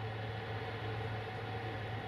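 Steady low electric hum with a faint even hiss, from a train standing nearby, unchanging throughout.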